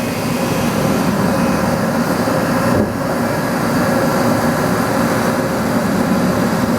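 Mori Seiki SL-25Y CNC turning center running a machining cycle: a steady, loud mechanical running noise with a brief dip about three seconds in.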